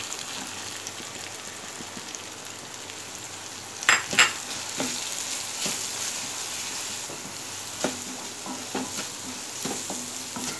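Onion-tomato masala with freshly added dry spices sizzling in oil in a kadai while a spatula stirs and fries it, scraping and knocking against the pan. Two sharp knocks in quick succession about four seconds in are the loudest sounds.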